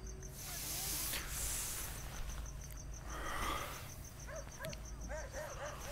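Night ambience of a cricket chirping in a rapid, even pulse over a low steady hum. There is a brief hiss about a second in, and a few short rising-and-falling calls near the end.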